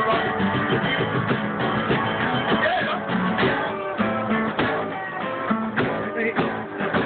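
Acoustic string band playing live: strummed acoustic guitar, picked mandolin and plucked upright bass in a steady, upbeat rhythm, with no singing.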